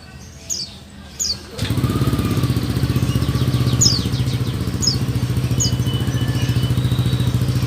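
A white-eye (pleci buxtoni) calling with short, sharp, falling chirps, a few times. About one and a half seconds in, a loud engine starts running steadily and drowns the chirps, which go on faintly over it.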